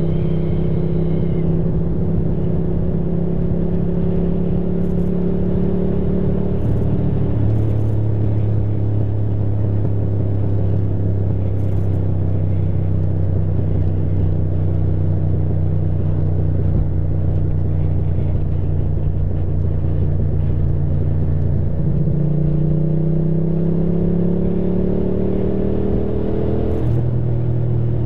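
Ducati motorcycle engine running under way with a steady low rumble of wind and road. Its note drops about seven seconds in as it shifts up and holds steady, then jumps up and climbs as the bike accelerates, dropping again near the end with the next upshift.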